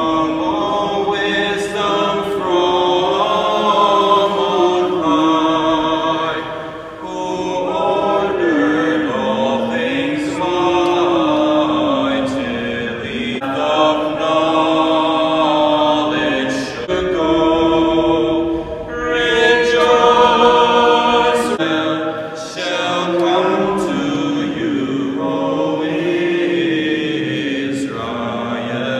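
Voices singing a slow hymn at a Catholic Mass, in long phrases of several seconds with short breaths between them, in a large church. It is the entrance hymn, sung before the priest opens the Mass with the sign of the cross.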